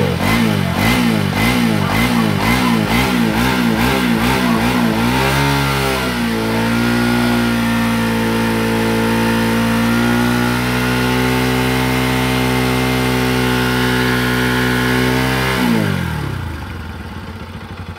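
Bajaj Pulsar NS200's single-cylinder engine being revved in quick blips, about two a second, then held at steady high revs for around ten seconds before dropping back near the end. It is being worked hard on the stand to heat it up so the new radiator fan switches on.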